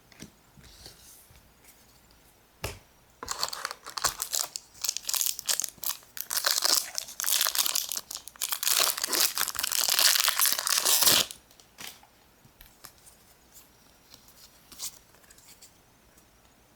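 Pokémon booster pack's foil wrapper being torn open and crinkled, a dense rustling that runs for about eight seconds, starting about three seconds in and stopping abruptly near the eleven-second mark. Faint rustles and soft taps come before and after it.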